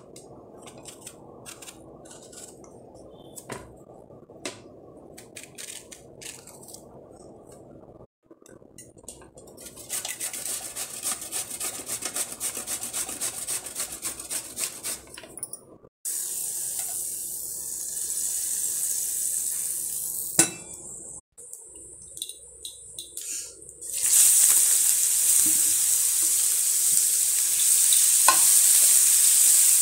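Bottle gourd rubbed on a stainless steel box grater in quick, rapid rasping strokes. Then grated bottle gourd sizzling steadily in a frying pan as it is stirred with a spatula, the loudest part, starting a few seconds before the end.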